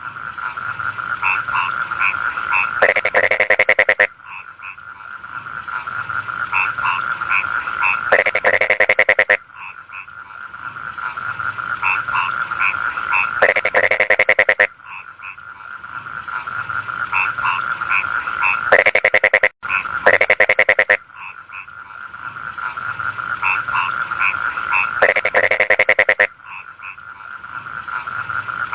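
Rice-field frogs croaking in chorus: a loud, rapid rattling croak about every five seconds, five times, over a continuous background of steady trilling and short repeated chirps.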